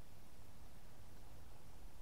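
Faint, steady riverside ambience beside a river in flood: a low rumble with an even faint hiss above it, and no distinct events.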